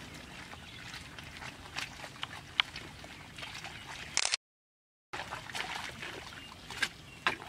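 Shallow water sloshing and trickling, with scattered small splashes and clicks. Just past the middle the sound cuts to total silence for under a second, then picks up again.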